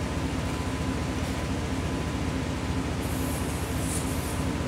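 Portable tire air compressor running steadily with a fast, even pulsing, pumping air into a pickup truck's slow-leaking front tire. Near the end a short high hiss of air sounds as the chuck is worked off the valve stem.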